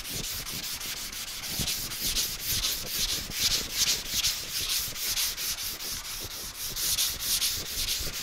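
Hand sanding block scrubbing primer on a car fender in quick, even back-and-forth strokes, a steady rasping scratch. It is block-sanding the primer flat to cut away the guide coat and show the low spots.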